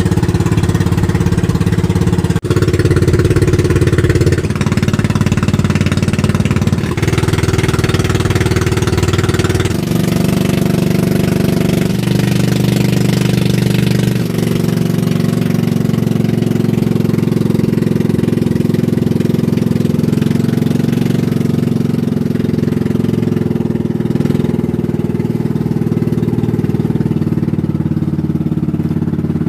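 Engine of a motorized outrigger fishing boat running steadily under way. Its note changes abruptly several times in the first fourteen seconds, then holds steady.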